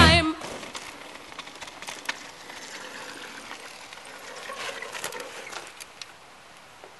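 A loud rock song cuts off right at the start. Then a Bergamont Big Air MGN mountain bike rolls over a gravelly dirt track, with tyre crunch and scattered rattles and clicks from the bike. The sound swells as the bike comes past about four to six seconds in, then drops away to a faint hiss.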